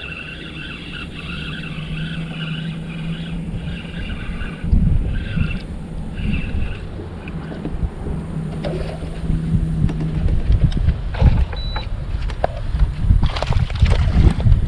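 Wind buffets the microphone and water slaps the bass boat's hull. An electric bow trolling motor hums steadily in two short runs. Near the end, a hooked bass splashes at the surface beside the boat.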